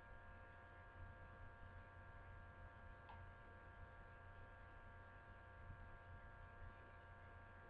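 Near silence: room tone with a steady electrical hum, and one faint click about three seconds in.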